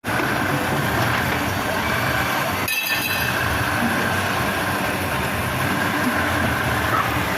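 Steady mechanical running noise, an even rumble with a faint steady whine, briefly dipping about three seconds in.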